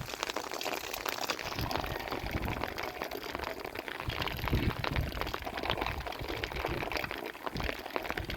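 Water pouring and splashing, with many small irregular taps and crackles.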